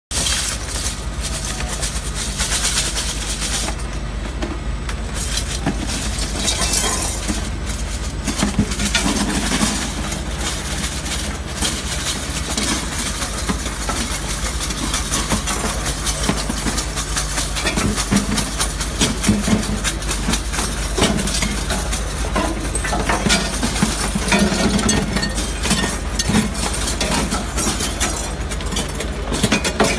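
A Bunting stainless-steel separation conveyor running with a steady low motor hum. Shredded scrap metal clatters and clinks along the belt and falls past the high-intensity magnetic drum.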